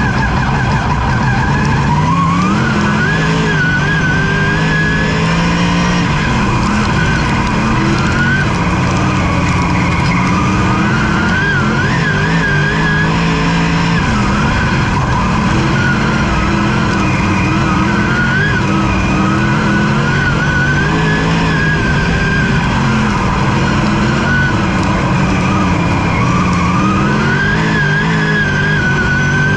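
Dirt-track race car's engine heard from inside its own cockpit, rising sharply in pitch about a second in, then revving up and easing off again and again as it laps.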